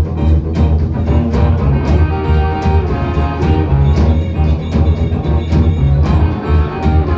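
Live rock band playing electric guitar, bass guitar and drum kit. A steady drum beat runs over a heavy low end.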